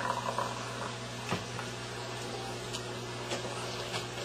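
Faint scattered pops and clicks from calcium carbonate sand fizzing in hydrochloric acid, over a steady low electrical hum.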